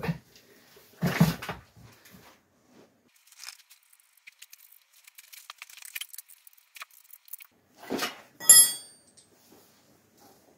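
Small metal clinks and taps of steel bolts and a spanner being handled while a gearbox is bolted to an engine, then a dull knock and a loud, ringing clink of steel on steel about eight and a half seconds in.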